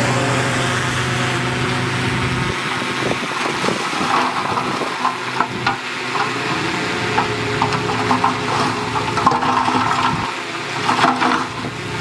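Loose soil and stones sliding and tumbling in a rushing pour, with many small stones crackling and clicking. A heavy machine's engine hums low under it for the first couple of seconds, then drops away.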